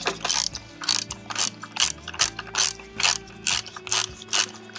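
Cordless electric ratchet running the belt tensioner's mounting bolt down in short bursts, about two to three a second.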